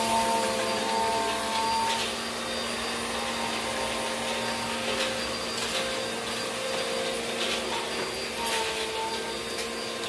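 Steady whirring drone of an electric motor-driven fan, with a light clack about eight and a half seconds in.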